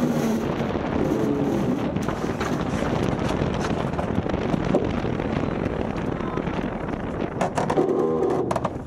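Wind buffeting the microphone and water rushing along the hull of a Maxi 72 racing yacht under way, a steady dense rush. Crew voices come through briefly about a second in and again near the end, along with a cluster of sharp clicks.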